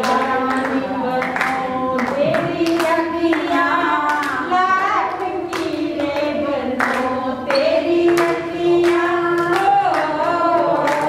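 A group of voices singing a song together, with hands clapping along at a regular beat.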